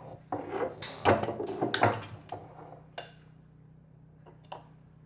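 A spoon clinking and scraping against dishware as honey is spooned out: a cluster of clinks and scrapes in the first two seconds, then a few single clicks.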